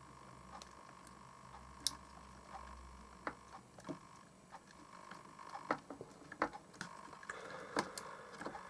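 Faint, scattered clicks and taps of small plastic parts being handled, as a broken potentiometer's plastic piece is pushed at its housing in a clock radio; the clicks come more often in the second half.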